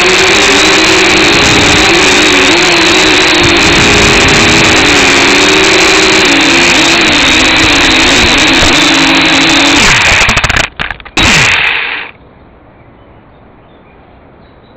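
Quadcopter drone's propellers running with a steady buzzing hum whose pitch wavers. About ten seconds in the sound cuts out briefly, then the motors wind down, falling in pitch, and stop.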